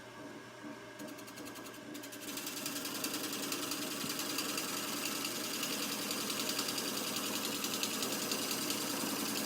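Wood lathe running while a turning tool cuts into a spinning birch burl bowl, starting about two seconds in: a steady motor hum under a loud rasping cut with a fast, even pulsing as the rim passes the tool each turn.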